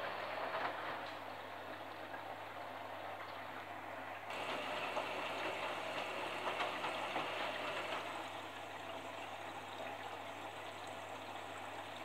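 Front-loading washing machine in its wash cycle: the drum turns, tumbling laundry and water sloshing and splashing against the door glass, over a steady low hum. The splashing gets louder about four seconds in and eases off again a few seconds later.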